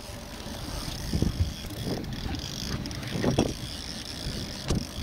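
Small boat's motor running under steady wind rumble on the microphone, with a few knocks and bumps of the camera being handled.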